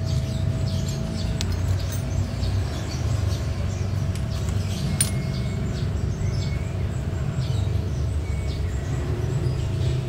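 Steady low background rumble, with small birds chirping faintly over it and a couple of sharp light clicks.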